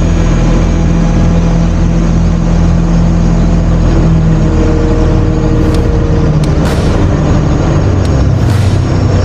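Kato NK-200H truck crane's diesel engine running steadily under load while it hoists a concrete bucket, heard from inside the operator's cab. Its low hum shifts in pitch about halfway through, and a few light clicks come in the second half.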